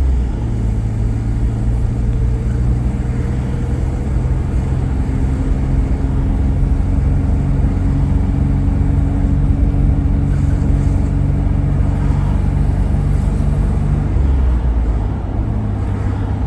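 Car driving along a city street: a steady low engine hum over road rumble.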